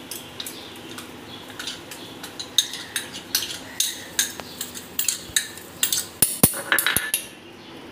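A steel spoon scraping and tapping spice paste out of a glass bowl onto prawns in a steel bowl: a run of quick clinks and scrapes, denser and louder in the second half, with a few sharper knocks near the end before it stops.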